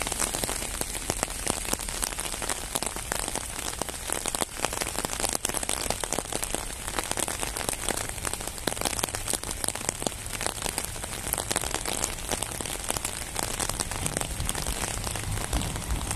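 Steady, dense patter of fine crackling noise, of the kind rain makes falling on a surface, with a low rumble building slightly near the end.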